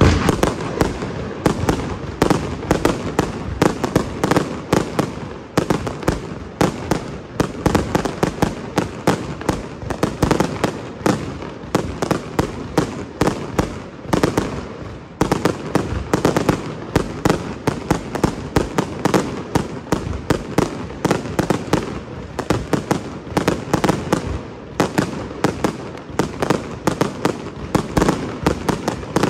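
Aerial fireworks display: a dense, unbroken run of shell bursts and bangs, several a second.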